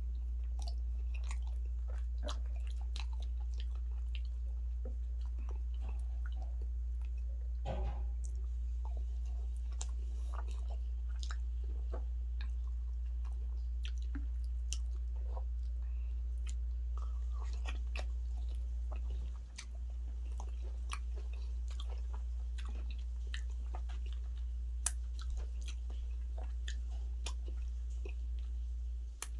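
Close-miked chewing of fufu and turkey stew: many small wet mouth clicks and smacks, with a louder bite about eight seconds in, over a steady low hum.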